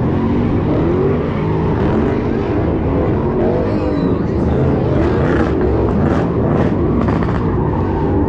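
Several car engines running and revving, the pitches rising and falling and overlapping, over a steady low rumble.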